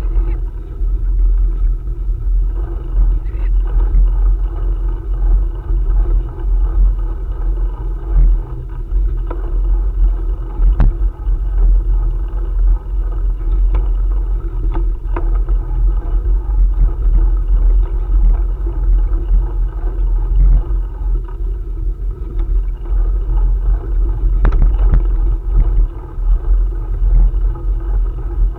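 Steady low rumble of wind and riding noise on a camera carried on a moving bicycle, with scattered short knocks and rattles.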